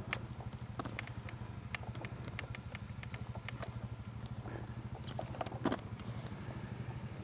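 Dual-sport motorcycle engine idling steadily with a fast, even pulse, with scattered light clicks and ticks over it.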